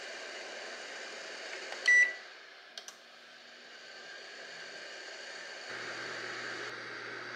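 Combination microwave oven set to bake at 160 °C: the start button gives one short high beep about two seconds in, followed by two faint clicks as the oven starts. It then runs with a steady fan whir and hum, and a deeper hum joins near six seconds.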